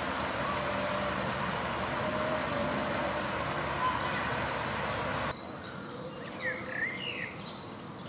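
Steady outdoor background noise, like distant city traffic, with faint bird calls above it. About five seconds in, the sound cuts to a quieter background where small birds give a quick run of short chirps.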